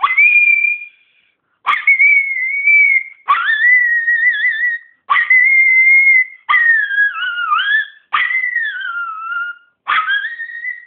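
Miniature pinscher howling on command, its 'singing': seven high-pitched howls in a row, each about a second long. Each howl swoops up sharply at the start, then holds and wavers, and the later ones bend down in pitch.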